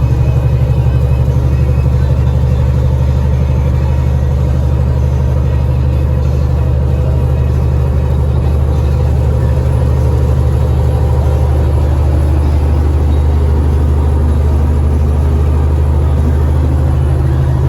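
Vehicle engine and road noise while driving: a steady, loud low drone that holds even throughout.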